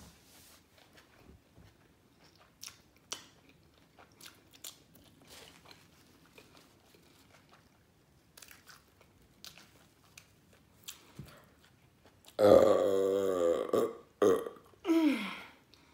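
Quiet chewing of a bacon cheeseburger with faint mouth clicks. About twelve seconds in comes a loud, long burp with a wavering pitch, followed by a short burp and then one that falls in pitch.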